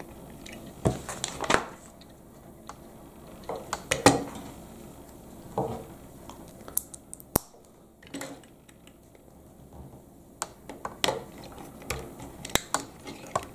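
Plastic LEGO bricks clicking and knocking as they are handled and pressed together, in irregular sharp clicks and taps.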